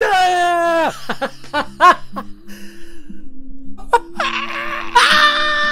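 A man's theatrical vocalising over background music with low held notes: a loud held note that sags in pitch, then a quick string of laughing bursts, then another long, loud cry near the end.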